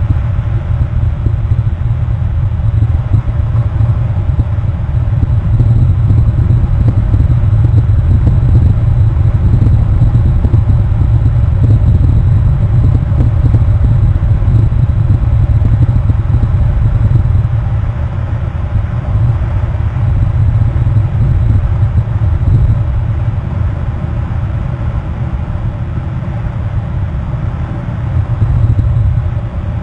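Steady low rumble, loudest through the middle and easing somewhat in the second half, with no distinct calls standing out.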